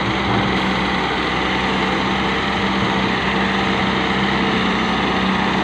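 Diesel engines running steadily with a constant hum: a Massey Ferguson 385 tractor idling close by while a Hitachi wheeled excavator works its boom and bucket.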